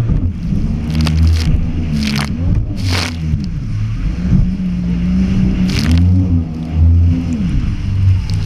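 Yamaha SuperJet stand-up jet ski's two-stroke engine revving up and down as the throttle is worked over choppy waves. Several sharp splashes of spray cut in, about a second and a half, two and three seconds in and again near six seconds.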